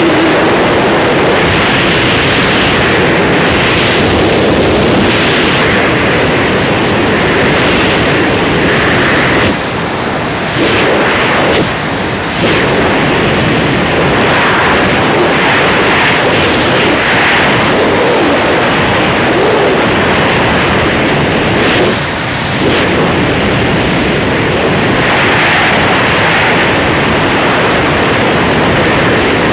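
Loud rushing wind buffeting the microphone of a camera worn by a wingsuit flier in freefall. The rush is steady apart from three brief dips in level, two close together near the middle and one about three quarters of the way in.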